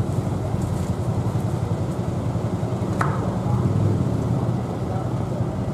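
Street traffic at a city intersection: car engines running with a steady low rumble. A single sharp click about halfway through.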